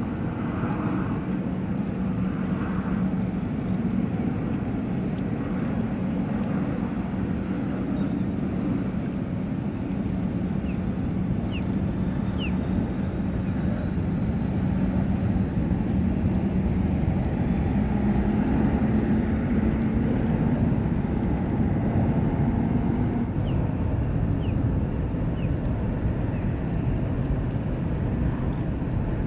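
Jet airliner engines heard at a distance as a steady low rumble with a hum, growing a little louder in the middle as the airliner comes in to land.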